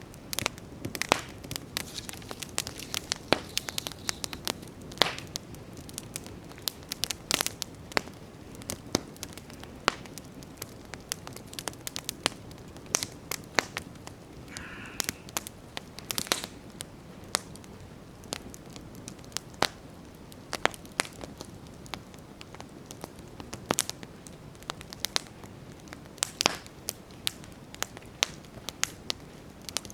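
Wood campfire crackling, with frequent irregular sharp pops and snaps over a steady low rush of burning.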